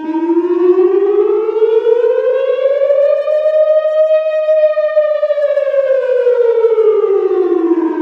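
Civil defence warning siren sounding one slow wail: the pitch rises over about four seconds and falls back over the next four. It is the public danger alarm.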